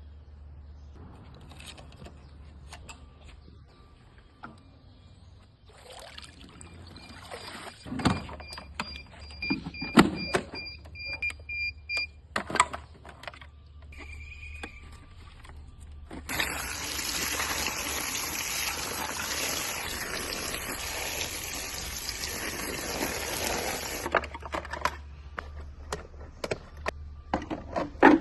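Scattered knocks and clicks of handling with a low hum under them, then about eight seconds of loud, steady rushing water that starts and stops abruptly.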